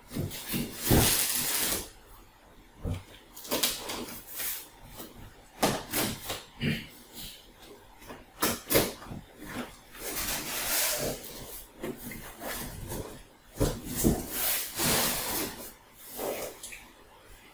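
A box cutter slitting packing tape along a cardboard carton, in repeated scraping, hissing swishes, with knocks and rustles of cardboard being handled.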